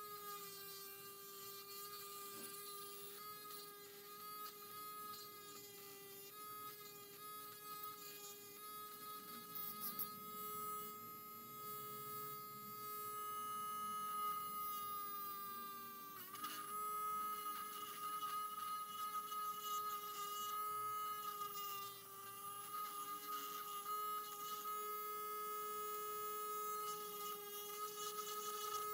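Small battery-powered electric screwdriver's motor running with a steady whine as it turns screws in a plastic casing. The pitch sags briefly about halfway through as the bit loads on a screw, then recovers.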